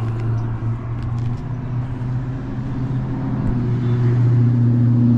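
Airplane on its approach into Oakland airport flying over: a low, steady drone that grows louder near the end.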